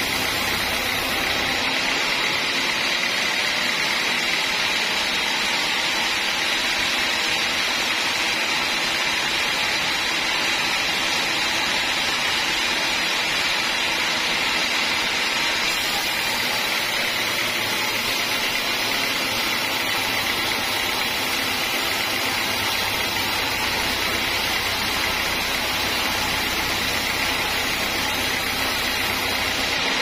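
Large band sawmill cutting lengthwise through a hard acacia log. The blade in the wood and the machine's motor make a steady, unbroken sawing noise that holds an even level throughout.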